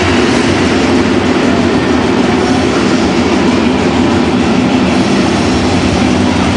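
Steady, loud rumbling noise of a moving vehicle.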